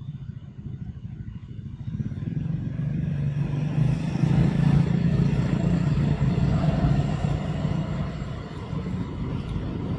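A motor vehicle's engine running, swelling in loudness over the first few seconds, loudest about four to five seconds in, then easing off a little.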